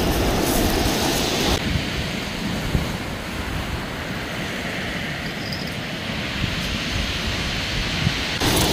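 Sea surf washing onto the beach, with wind rumbling on the microphone. The brighter hiss drops away abruptly about a second and a half in and comes back near the end.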